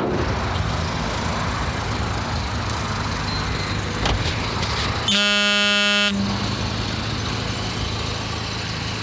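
A vehicle horn sounds once, a steady honk of about a second, over a constant low rumble of outdoor and engine noise.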